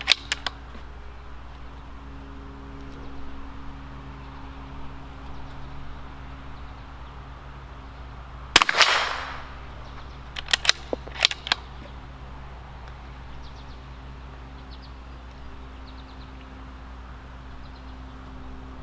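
A Bergara B-14 bolt-action .22 LR rifle fires one shot about eight and a half seconds in; the report is sharp and trails off in a short echo. A couple of seconds later come about four quick metallic clicks as the bolt is worked to eject the case and chamber the next round.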